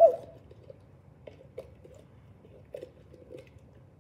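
Hard, glittery clear slime with foam beads being handled, with a sharp click at the start and then scattered small crackles and clicks.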